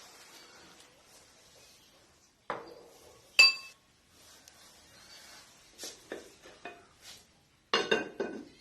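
Spoon clinking against a soup bowl: a knock, then one loud ringing clink about three and a half seconds in, a few lighter taps, and a quick run of clinks near the end.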